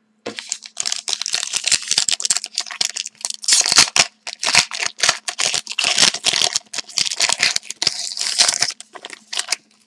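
Foil wrapper of a hockey card pack being torn open and crinkled in the hands: a dense, irregular run of crackles that stops just before the end.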